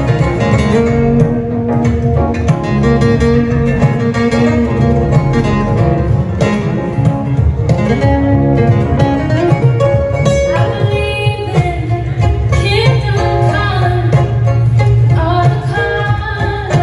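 Live folk music: a banjo picking fast runs over stage-keyboard accompaniment, with a woman's voice singing in the second half.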